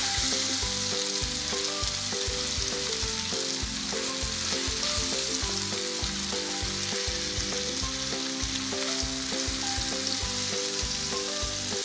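Paneer cubes sizzling as they shallow-fry in oil in a pan, with a steady hiss, while a wooden spatula turns them.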